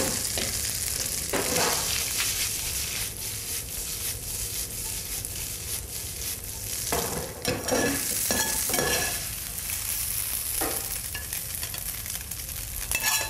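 Boiled spätzle sizzling in butter in a frying pan as they are stirred and tossed with a metal spoon, with a few brief scrapes and knocks among the steady sizzle.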